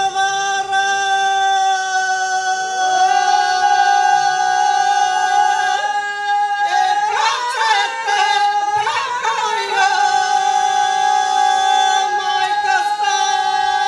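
Ganga, the unaccompanied folk singing of the Imotski hinterland: men's and women's voices hold long, loud notes together, with a stretch of wavering, shifting pitch about halfway through before settling back into held notes.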